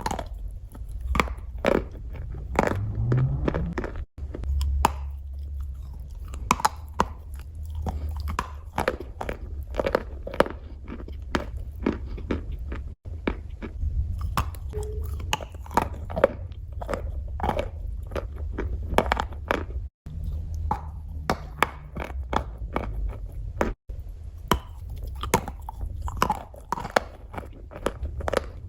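Chalk being bitten and chewed close to the microphone: a steady run of irregular crisp crunches.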